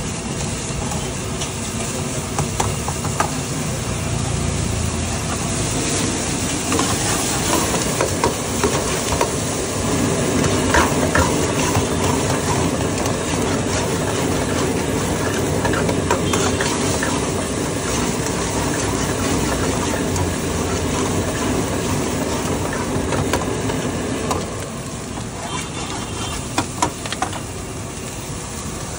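Food sizzling and frying in oil in a steel wok over a gas burner, stirred with a metal ladle that clicks against the pan now and then. The sound drops a little quieter for the last few seconds, with a couple of clinks.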